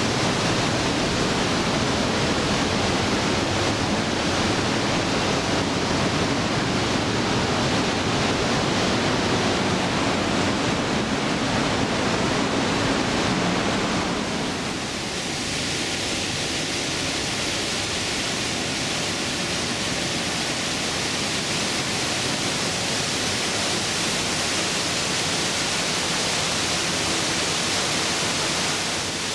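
Glacier-fed waterfall of Trümmelbach Falls rushing through its gorge inside the mountain, a loud steady roar of falling water. About halfway through, the roar turns brighter and hissier.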